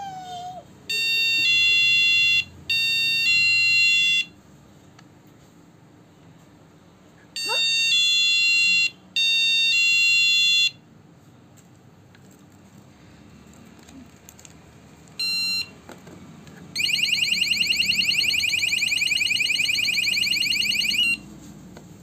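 Wireless door-and-window alarm unit sounding through its built-in speaker. Four loud electronic tone blasts of one to one and a half seconds each, in two pairs, come early and near the middle. A short beep follows about 15 seconds in, then a fast-warbling alarm siren for about four seconds near the end.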